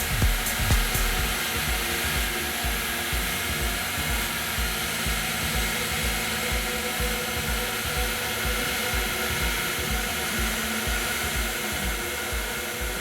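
A steady rush of blown air, as from an airbrush spraying or a hair dryer drying paint, holding even throughout and easing slightly near the end. Background music with a steady beat plays underneath.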